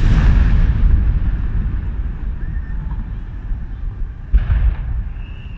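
Aerial firework shells bursting: a loud boom at the start that rumbles and fades over about two seconds, then a second boom about four and a half seconds in.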